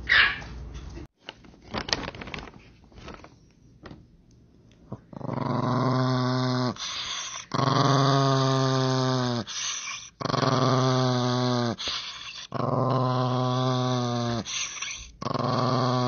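A small Chihuahua-type dog making long, drawn-out growling vocalizations, four in a row with short gaps, each lasting about two seconds, with a fifth starting near the end. A short dog bark comes right at the start.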